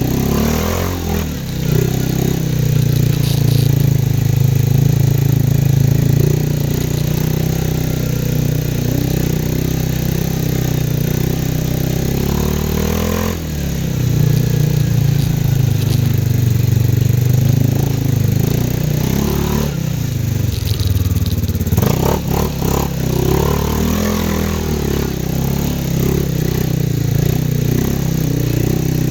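CFMoto 500 ATV engine running under way, dropping off and picking up again with the throttle three times: about a second in, near the middle, and about three-quarters through.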